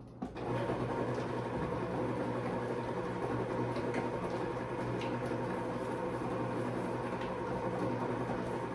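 Stand mixer starting up a moment in, then running steadily, its paddle beating cream cheese and sugar for cheesecake batter. The loosened batter makes a liquidy, licking sound coming off the paddle and bowl, a good sign that it is smooth and runny.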